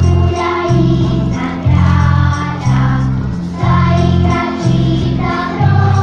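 A song sung by a choir over a heavy bass line that pulses about once a second, loud and continuous.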